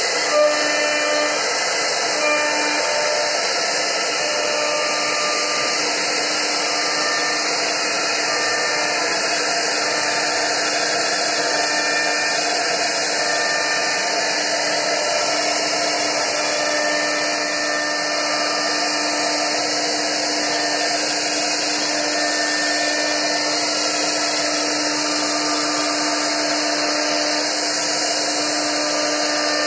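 CNC wood router's spindle running with its bit cutting into a solid wood slab: a steady whine over an even high hiss.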